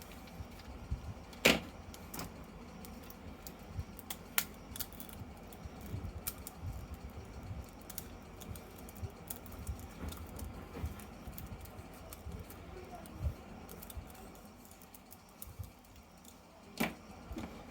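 Hands handling plastic toys and packaging: scattered light clicks, taps and clattering, with a sharper click about a second and a half in and another near the end.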